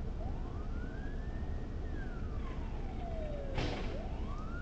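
Emergency vehicle siren wailing: one slow rise and fall taking about four seconds, starting to rise again near the end, over a low steady traffic rumble. A short burst of noise comes about three and a half seconds in.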